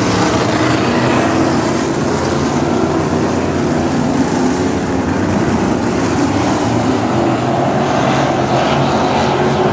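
Several 305 winged sprint cars' V8 engines running together at low, even speed as the field circles under caution, a steady multi-engine drone.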